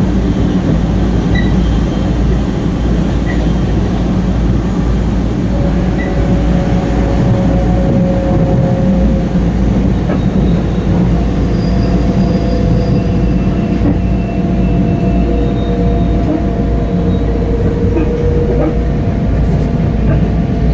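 Long Island Rail Road commuter train at speed, a loud steady rumble of wheels on rail heard inside the passenger car, with a second train running alongside on the next track. Faint thin wheel whines and squeals drift in and out over the rumble.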